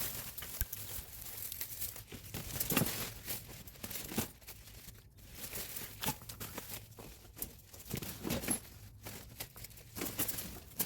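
Irregular rustling, tearing and crunching of soil and plant vines being handled while potatoes are dug out of a garden bed by hand.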